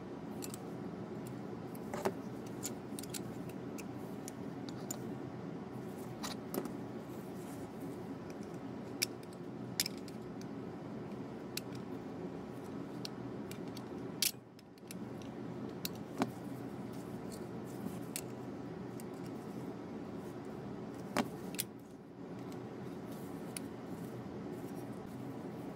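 Pliers clicking and snapping against the crimped metal tabs of a pressed-steel Tonka toy truck body as they are pried open to take it apart: a dozen or so sharp metallic clicks spaced irregularly, over a steady low hum.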